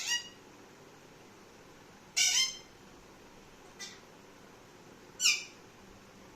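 Parrot giving short, loud, shrill calls about every two seconds, each falling in pitch; the third is faint.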